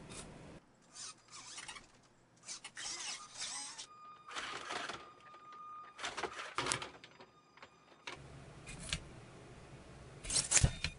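Servo motors of small hobby gymnast robots whirring and clattering in short bursts as a robot swings on a horizontal bar, one burst with a steady whine under it. Then a robot moves on a balance beam, ending in a cluster of louder strokes with a heavy knock near the end.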